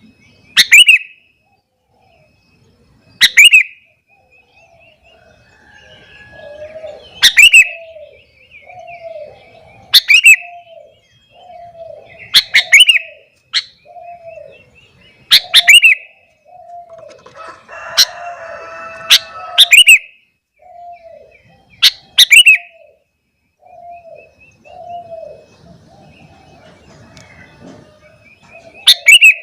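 Sooty-headed bulbul (kutilang) calling with loud, sharp chirps every two to three seconds. Under them runs a softer, low, falling note repeated about once a second.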